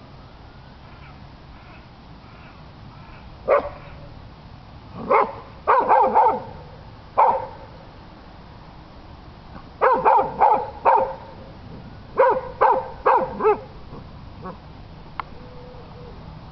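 A dog barking, about fourteen short barks: single barks at first, then quick runs of three or four, with pauses between them.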